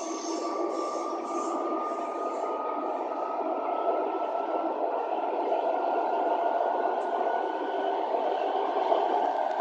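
Electric commuter train running along the track, heard from inside the carriage: a steady rumble and rush of wheels and air, with a faint whine that slowly rises in pitch.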